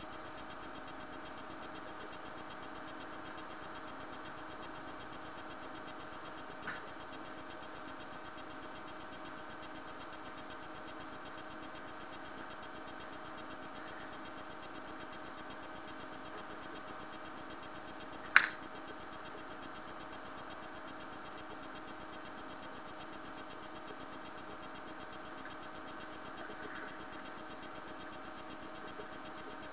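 Steady background hum of several held tones, with one sharp click about eighteen seconds in and a faint tick near seven seconds.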